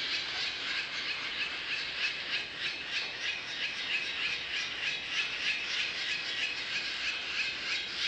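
Barn swallow nestlings begging as a parent feeds them: a continuous chorus of rapid, repeated squeaky calls from several chicks. Played back at half speed, so the calls are lower-pitched and drawn out.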